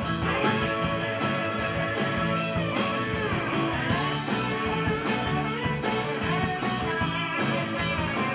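Live band playing an instrumental break between verses, with electric guitars, bass, drums and keyboard. A lead line bends in pitch a few seconds in.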